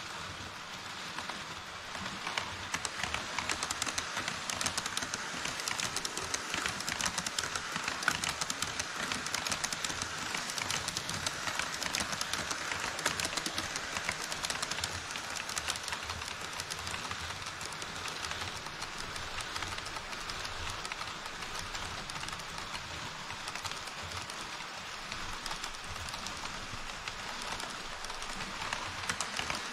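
HO scale model trains running through a model truss bridge: a steady rattle of small metal wheels on the track with dense fast clicking, louder from about two seconds in as the trains pass close.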